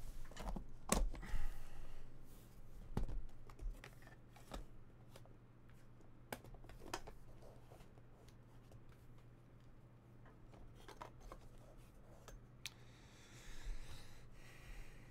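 Metal latches of an aluminium briefcase-style card box clicking open, followed by the lid being lifted and hands moving things inside: scattered sharp clicks and knocks, loudest in the first few seconds, over a low steady hum.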